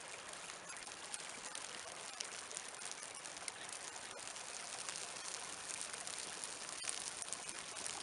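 Birch and twig kindling catching under a small Siberian log fire lay, crackling with many small scattered pops, over the steady rush of a small brook.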